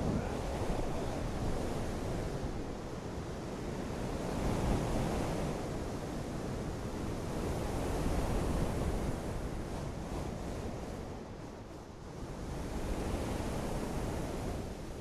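Wind gusting over the microphone: a steady rushing that swells and eases every few seconds, loudest about a third and just over halfway through.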